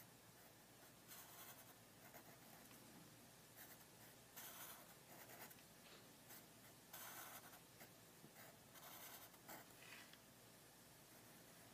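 Faint strokes of a Sharpie fine-point permanent marker drawing on paper, a series of short scrapes of about a second or less with pauses between.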